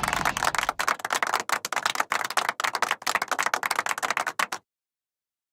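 Cartoon sound effect of fast scurrying footsteps: a dense run of quick clicks and taps that cuts off suddenly about four and a half seconds in.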